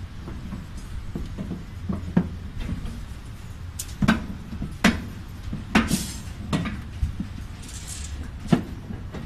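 Half a dozen sharp metallic knocks and clanks at irregular intervals, from work on steel rebar cages, over a low steady rumble.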